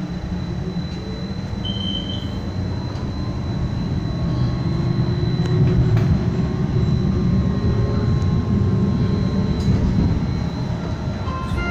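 Low rumble of a Brookville Liberty modern streetcar running along its track, heard from inside the car. It grows louder over the first six seconds, with a faint steady high whine above it.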